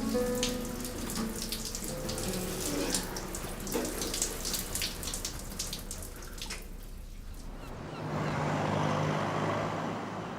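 Running water splashing, under soft background music; about three-quarters of the way through it gives way to a steadier hiss with a low hum.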